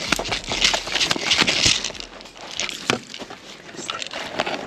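Dry leaves and twigs crunching and snapping underfoot in a brushy wood, irregular crackles that are densest in the first two seconds.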